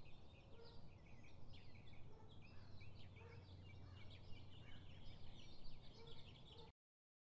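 Outdoor park ambience: many small birds chirping and twittering over a low steady rumble. It cuts off suddenly near the end.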